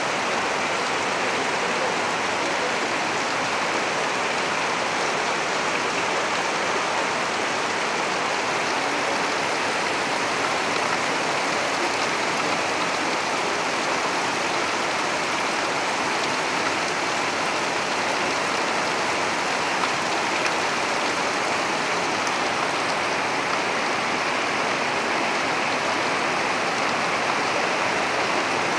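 Heavy rain pouring down steadily, a dense, even hiss of water that neither builds nor eases.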